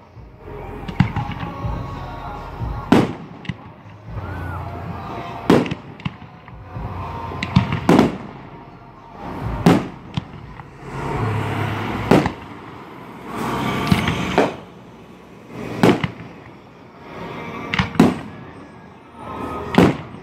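Aerial fireworks display: shells bursting one after another, a sharp bang about every two seconds, about ten in all, with a rushing noise between the bangs.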